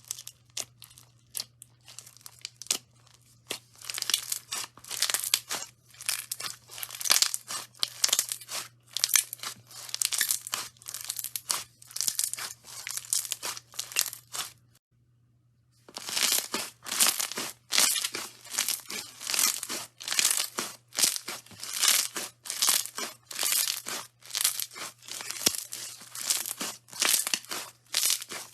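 Slime being squeezed and pressed by hand, making dense crackles and pops in bursts about every half second, with a brief pause about halfway through.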